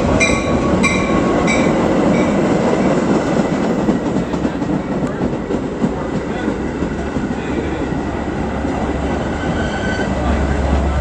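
A train at the platform: a bell rings in evenly spaced strokes for the first second and a half, over the steady rumble of the train, which carries on after the bell stops.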